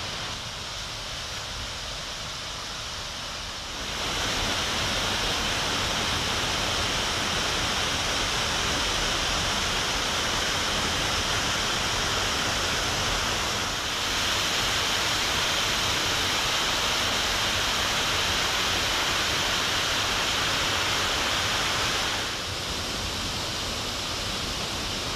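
Steady rushing of running water, a stream or small waterfall, as a continuous even hiss. It gets louder about four seconds in and drops back a little near the end.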